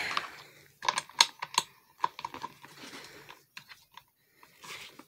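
Metal Allen key clicking and rattling against a bolt and the metal mounting plate of a gaming chair's seat mechanism as it is worked, a quick run of sharp clicks, some with a short metallic ring, bunched about a second in and again around two seconds, with brief rustling near the start and the end.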